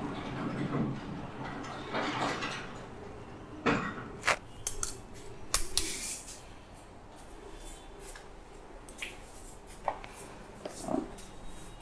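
Rustling handling noise, then a quick run of sharp clicks and taps about four to six seconds in, with a few fainter taps later.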